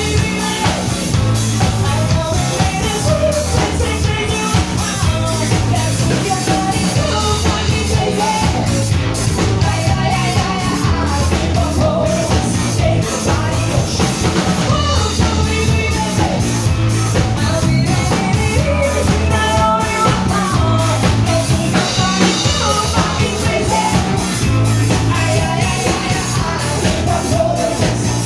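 Loud song with singing over a steady drum-kit beat and a bass line.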